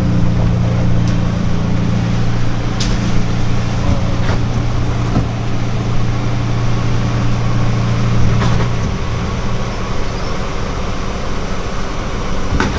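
A vehicle engine idling with a steady low hum, heard from inside a car with its side window open; the hum drops away about nine seconds in. A few light clicks over it.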